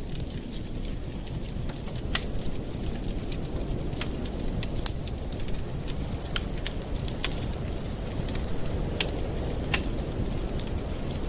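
Campfire burning: a steady low rumble of flames with irregular sharp crackles and pops of burning wood, a few a second.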